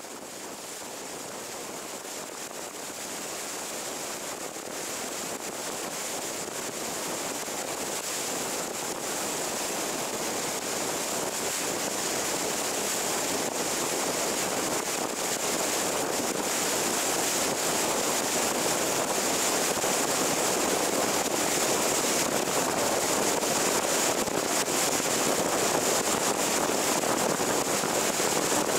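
Steady rushing wind and road noise from a car driving at speed on a highway. It grows gradually louder over the first two-thirds, then holds level.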